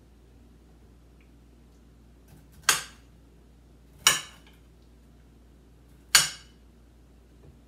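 A kitchen knife chopping through broccoli stems and striking the cutting board: three sharp chops, each with a short ringing tail, at uneven gaps of a second and a half to two seconds.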